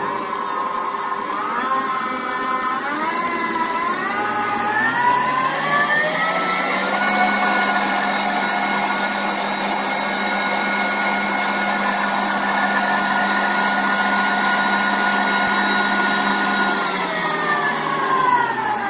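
Signora La Rose stand mixer's electric motor, switched on and stepped up through its speed settings, its whine rising in steps over the first several seconds. It then runs steadily and winds down near the end as the dial is turned back toward off.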